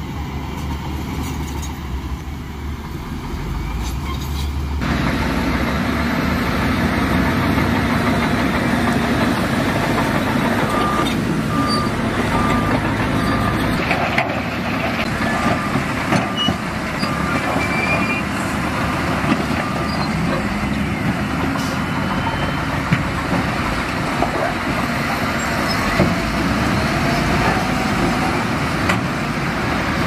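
Wheel loader's diesel engine working under load as it shoves rock and gravel through shallow water, louder from about five seconds in. Midway, a back-up alarm beeps about twice a second for several seconds.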